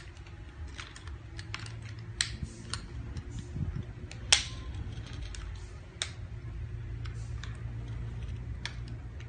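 Hard plastic toy pieces clicking and knocking irregularly as they are handled and fitted together, with one sharper click about four seconds in.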